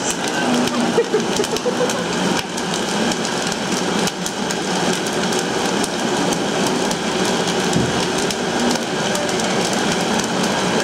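Countertop blender running steadily on its low setting, blending chile peppers for the tamale salsa.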